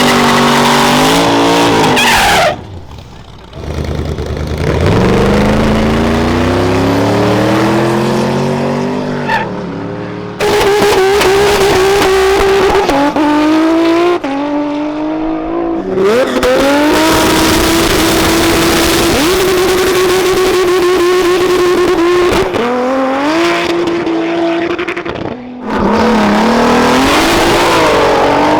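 Drag-race cars' engines revving hard, sweeping up and holding at high revs, with tyre squeal. The sound comes in several loud stretches that start and stop abruptly.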